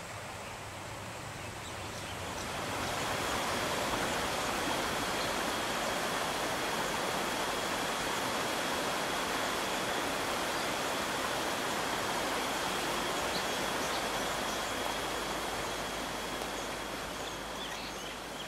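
Steady rushing of a wide river, an even hiss that swells about two seconds in and eases off near the end.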